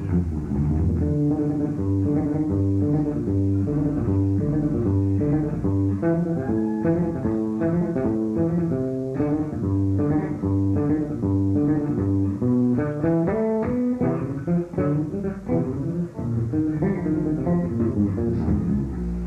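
Live electric bass guitar solo: fast runs of short, rapidly changing notes, played through an amplifier.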